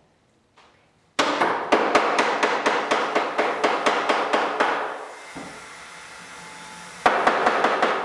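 Rapid, even hammer blows, about four strikes a second for several seconds, then a pause and a second run of blows near the end.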